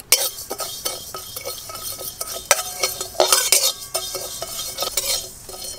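Flat metal spatula scraping and clinking against a dry aluminium kadai, stirring whole spice seeds (panch phoron and cumin) that are being dry-roasted without oil. The scrapes come irregularly, with a few louder clinks.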